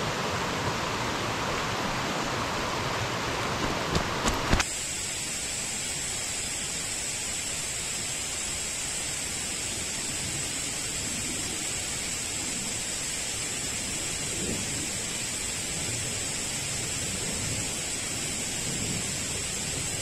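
Mountain creek water rushing steadily. A few sharp knocks come about four seconds in, and the rush then changes abruptly to a thinner, hissier sound.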